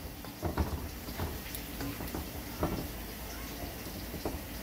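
A spatula stirring thick chicken curry in a large metal pot, with irregular scrapes and knocks against the pot over the sizzling and bubbling of the simmering curry.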